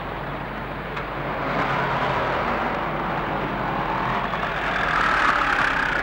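City street traffic: a steady noise of passing cars that grows louder about a second and a half in and is loudest about five seconds in.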